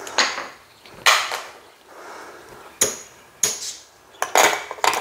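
Casino chips clacking as a winning bet is paid and the chips are moved by hand: a run of separate sharp clacks, several close together near the end.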